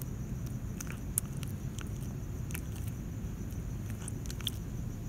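A cat chewing and crunching a rat she is eating whole: irregular short wet clicks and crunches, a few each second.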